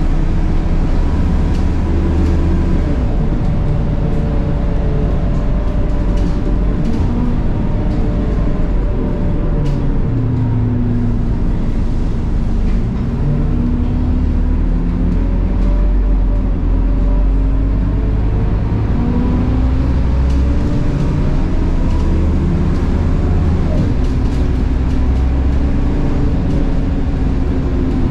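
Scania K230UB bus's 9.3-litre five-cylinder Scania DC9 diesel and ZF Ecomat 6HP504C automatic gearbox heard from inside the cabin under way, with a steady low rumble. Its whine drops and climbs again several times as the gearbox changes gear.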